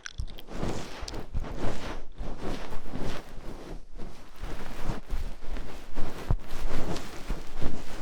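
ASMR trigger sounds close on a microphone: a continuous run of short, irregular scratching and rustling strokes.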